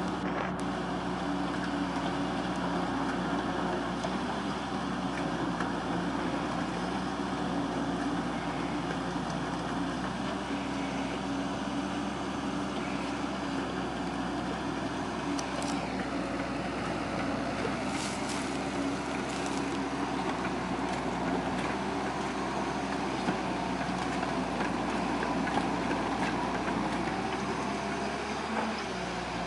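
Diesel engine of an amphibious long-reach excavator running steadily under load while it digs, with a few brief clicks about halfway through.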